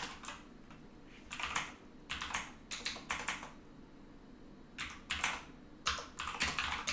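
Typing on a computer keyboard: short runs of quick keystrokes with brief pauses between them, and a longer pause of about a second near the middle.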